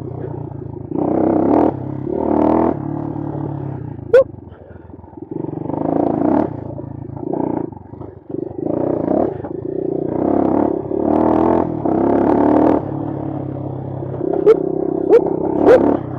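Bashan Brozz 250 dual-sport motorcycle engine revving up and easing off over and over under trail riding. Short sharp ticks cut through, once about four seconds in and three times near the end.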